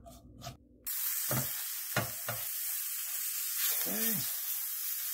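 Sliced mushrooms sizzling in olive oil in a nonstick sauté pan as they brown, starting abruptly about a second in. A wooden spatula stirs them, knocking and scraping against the pan a few times.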